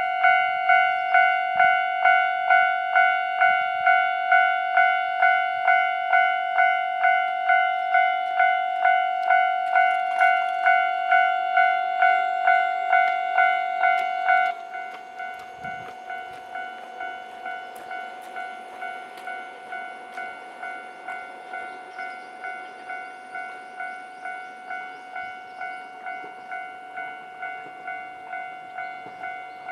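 Japanese railway level-crossing warning bell ringing, one pitched ding about twice a second, signalling an approaching train. About halfway through it suddenly drops to a much lower volume and keeps ringing at the same pace.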